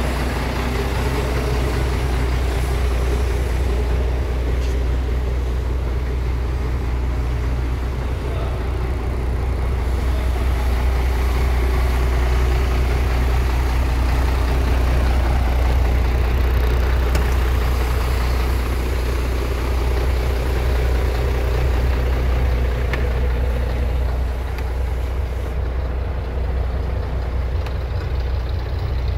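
MAN 19.422 tractor unit's straight-six diesel engine idling steadily, an even low rumble.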